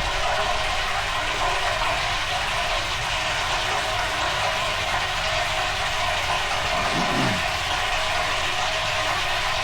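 Old Hotpoint washing machine running mid-cycle, a steady mechanical rush from the turning drum and motor with a water-like wash to it. About seven seconds in, a short falling tone sounds under it.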